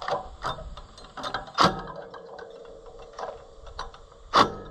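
Cordless DeWalt driver with a socket extension working a bolt loose on a mower, its motor running steadily for about two seconds amid metallic clanks and knocks. The two loudest knocks come about a second and a half in and near the end.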